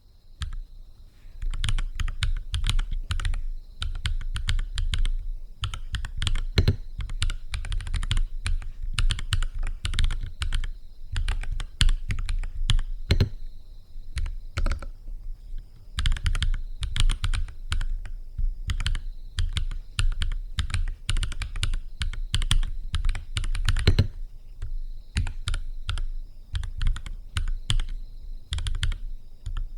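Typing on a NuPhy Halo 65 mechanical keyboard with Gateron Baby Kangaroo tactile switches: a steady, fast run of keystrokes with a deep, weighty knock to each press and a couple of brief pauses.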